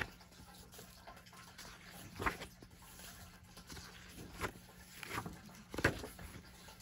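Pages of a paperback colouring book turned by hand, each turn a short paper swish and rustle, four turns in all.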